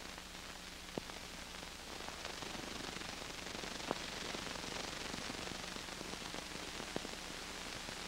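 Steady hiss with a low hum and a few scattered clicks: the background noise of an old optical film soundtrack.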